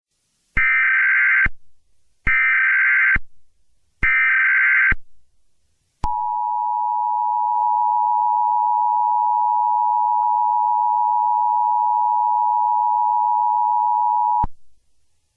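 Emergency Alert System SAME header: three short, harsh digital data bursts about a second each, a second apart. They are followed by the EAS two-tone attention signal (853 and 960 Hz together), held steady for about eight and a half seconds, which announces an emergency alert.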